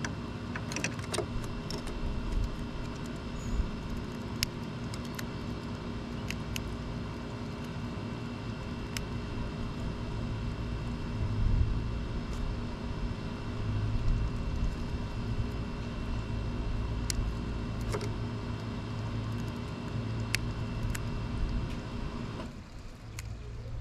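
A steady motor hum, several even tones at once, with wind rumbling on the microphone and a few scattered sharp clicks; the hum cuts off suddenly near the end.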